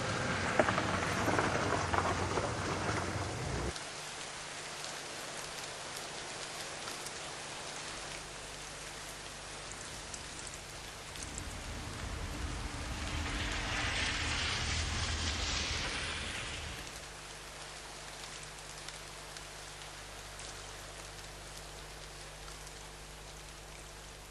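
Steady rain falling, louder at first until it cuts off abruptly about four seconds in, then swelling again in the middle before settling back to a lighter patter.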